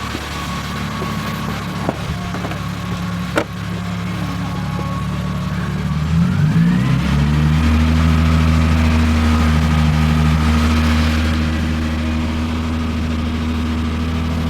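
Car engine idling, then raised about six seconds in and held at a steady higher speed until near the end, while being run on Seafoam engine cleaner. Two sharp clicks sound a second and a half apart in the first few seconds.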